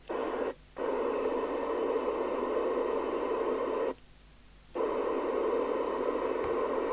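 FM receiver hiss from the Sapphire X4000 27/81 UK FM CB radio's speaker, the open-squelch noise of a sensitive receiver on an empty channel. The hiss cuts out briefly about half a second in and again for almost a second around four seconds in.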